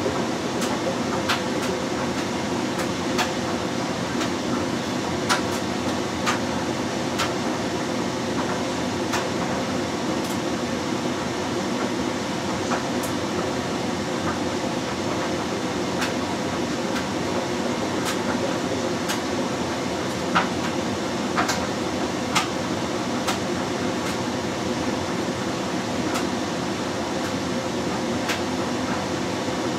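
LG Direct Drive 6 Motion front-loading washing machine (FH4U2VCN) tumbling its wash load in sudsy water: a steady churning run with irregular sharp clicks and knocks, about one every second or two.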